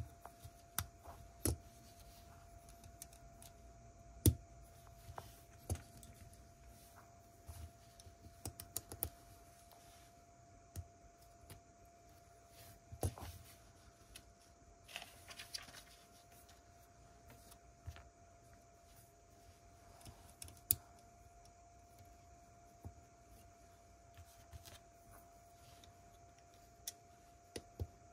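Plastic Lego bricks being handled and pressed together: scattered light clicks and taps, at times several a second, with a short rustle about halfway through, over a faint steady hum.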